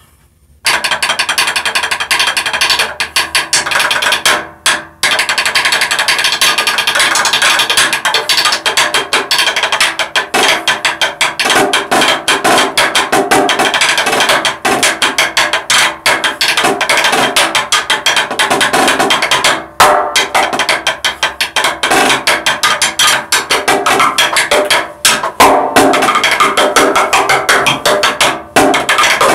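Marching snare drum played solo with sticks: fast, dense rudiments and rolls, starting about half a second in, with brief breaks around four and a half seconds in, near twenty seconds and shortly before the end.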